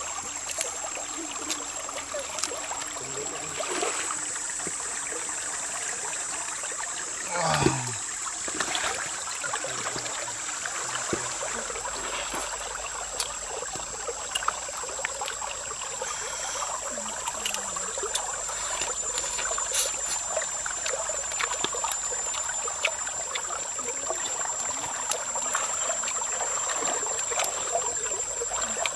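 Shallow stream running over stones, a steady water rush throughout, with a steady high-pitched whine above it and scattered small clicks. About seven and a half seconds in comes one loud sound that falls quickly in pitch from high to low.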